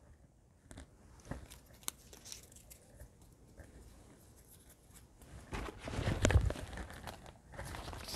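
Small paper slips rustling and crinkling as they are handled and unfolded, with soft clicks throughout and a louder burst of rustling a little past halfway.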